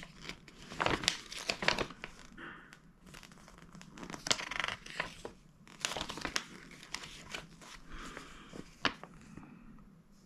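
Packaging crinkling and rustling as it is handled, in irregular bursts of crackle with a few sharper crackles.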